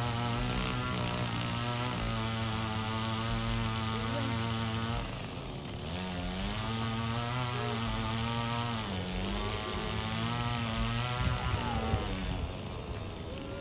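Lawn mower running steadily. Twice, about five seconds in and again about nine seconds in, its pitch sags and then recovers, as a mower does when it bogs down in tall grass.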